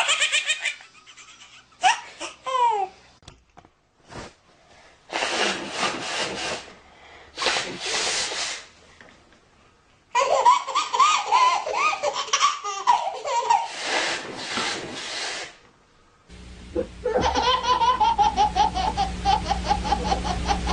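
Babies laughing hard in a string of short clips: high-pitched squealing laughter at the start, two loud breathy noises without pitch about five and seven seconds in, then several seconds of a baby's belly laughter. After a cut about sixteen seconds in, a toddler laughs in quick, rhythmic bursts over a steady low hum.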